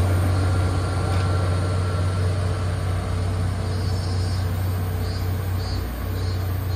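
JNR KiHa 47 diesel railcar with its original DMF15HSA diesel engine running under load as it pulls away, a steady low drone that slowly fades as the train moves off.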